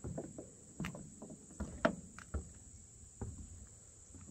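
Footsteps on wooden deck boards: a series of soft, uneven thumps and knocks, the loudest about two seconds in.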